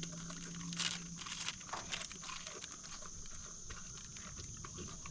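Cheese crackers being handled and eaten: a scatter of small crinkles and crunches from the cracker packet and the crackers themselves.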